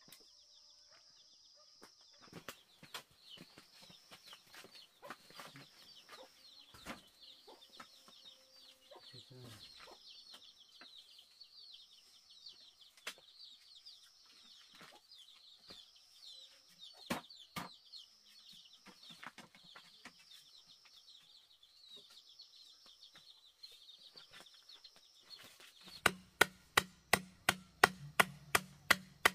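Scattered light knocks and clatter of a bamboo shelf being handled, with a high chirping call repeating about every second and a half in the background. Near the end a machete begins chopping bamboo, loud sharp strikes about three to four a second.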